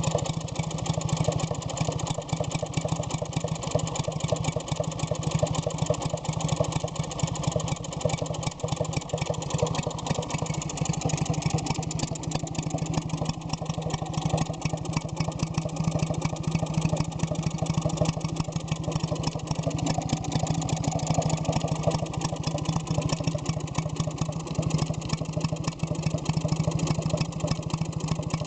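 Villiers WX11 two-stroke, water-cooled stationary engine of 1948–49 running steadily at an even speed, freshly rebuilt with new rings and bearings.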